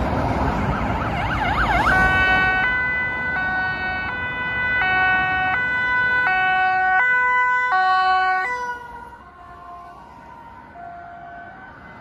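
Ambulance siren: a brief fast rising-and-falling sweep over road traffic noise, then a two-tone hi-lo siren alternating about every three quarters of a second. It grows fainter after about eight and a half seconds as the ambulance pulls away.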